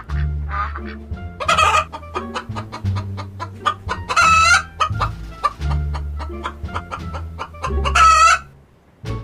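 Chickens clucking in quick runs, with three louder, longer calls about one and a half, four and eight seconds in, over background music.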